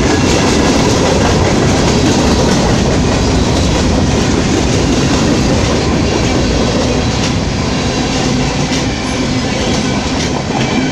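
Norfolk Southern freight train's cars rolling past close by: a loud, steady rumble of wheels on rail with clickety-clack over the joints, easing a little near the end.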